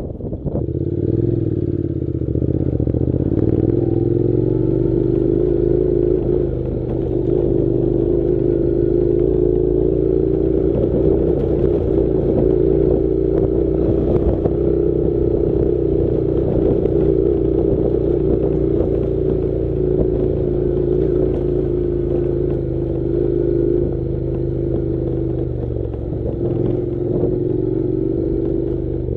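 Honda NC700 motorcycle's parallel-twin engine running steadily while riding, its pitch rising a little in the first few seconds and then holding nearly level.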